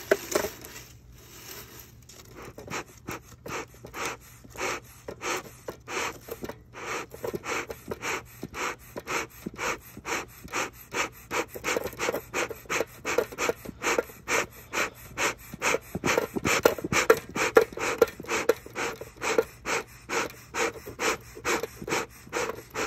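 Bee smoker bellows being pumped in a quick, steady rhythm, a little over two puffs a second, each a short whoosh of air forced through the fire can. It is stoking the pine-needle and paper fuel to get it burning and smoking. The puffs get louder about two-thirds of the way through.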